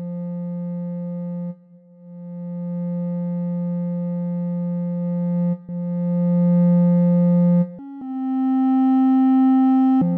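Zebralette 3 software synthesizer playing a clarinet-like patch: long held notes that each swell in slowly, with a touch of reverb. Three notes on the same low pitch, then a higher note about eight seconds in, dropping back to the low note near the end.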